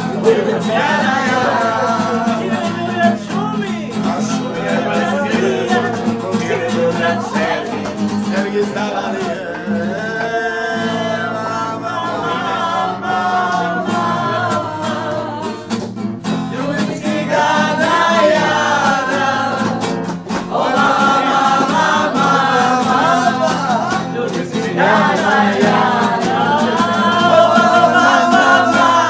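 A woman singing to her own strummed acoustic guitar, with a man's voice and others joining in as a group singalong.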